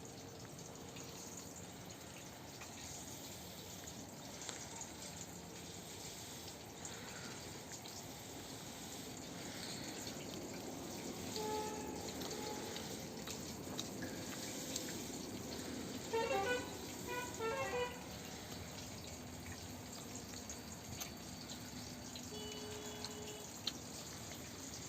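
Steady light rain falling and dripping. About two-thirds of the way in, a brief choppy pitched call stands out above it.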